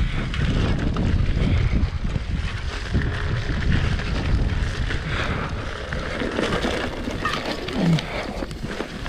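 Mountain bike riding down a rough dirt singletrack: tyres rolling over the ground and the bike rattling with many small knocks, under a steady low rumble of wind on the camera's microphone.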